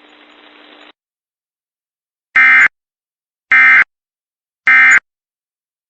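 Emergency Alert System SAME end-of-message signal: three short, identical buzzy digital data bursts about a second apart, marking the end of the warning.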